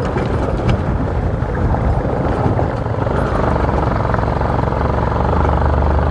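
Motorcycle engine running steadily while riding, gradually getting louder.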